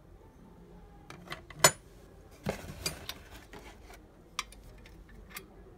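Metal mortise-lock parts being handled: a sharp metal clink about one and a half seconds in as the steel strike plate is set down among the loose screws and keys, then a short stretch of rustling and knocking as a hand reaches into the cardboard box for the lock body, and two lighter clicks near the end.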